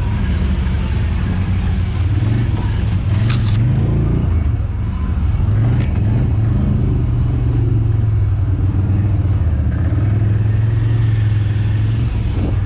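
Quad (ATV) engine running steadily, its low pitch wavering a little up and down, with two brief sharp clicks about three and six seconds in.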